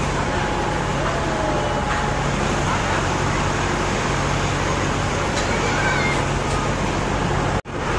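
Fairground din: a steady mix of crowd noise and ride machinery with a low hum, and a few short high-pitched cries gliding in pitch. The sound cuts out for a moment near the end.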